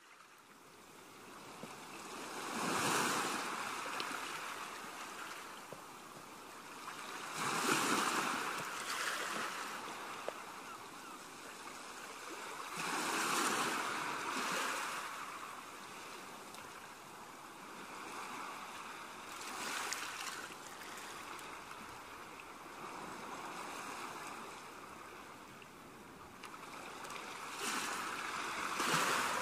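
Rushing noise of waves, swelling and fading about every five seconds.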